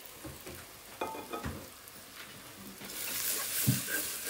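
Onions and freshly added ground spices frying in oil in an aluminium pan, stirred with a wooden spoon. A few knocks come first, then from about three seconds in the sizzle grows louder as the spoon turns the mix.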